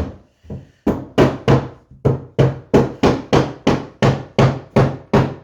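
Hammer blows tapping a replacement hardwood floor board down into place, a quick even run of about three or four strikes a second that starts about a second in.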